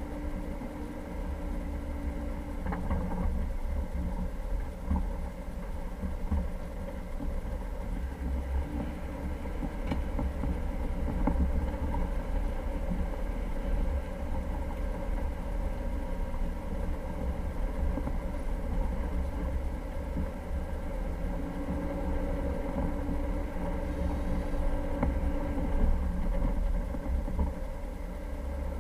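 Jeep Cherokee engine running steadily while driving, over a constant low rumble, with a few short knocks along the way.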